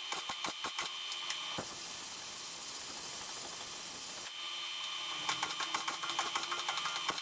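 MIG welder crackling as a patch panel is welded into the car's lower rear quarter: rapid, irregular popping at the start and again from about five seconds in, with a steady hiss from about one and a half to four seconds in.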